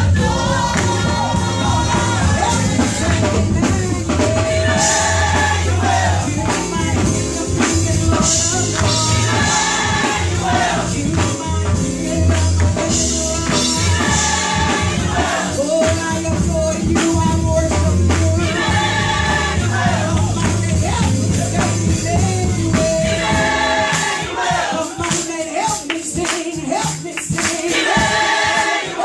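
Gospel choir singing live with instrumental accompaniment and percussion. The low accompaniment drops away near the end.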